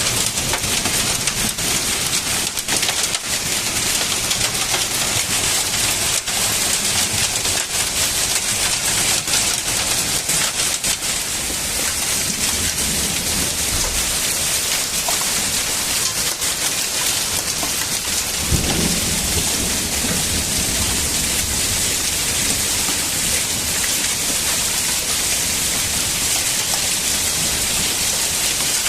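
Heavy hail and rain pelting down, hazelnut-sized hailstones hitting surfaces with many sharp strikes in a dense steady downpour that thins to a smoother rush about halfway through. A low rumble rises about two-thirds of the way in.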